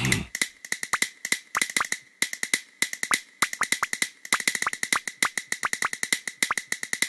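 Castanets clicking in quick, uneven runs of sharp clicks with a few short pauses, for a castanets-playing cartoon character.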